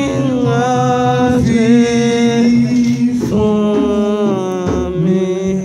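A church hymn sung in long held notes that step from one pitch to the next every second or two.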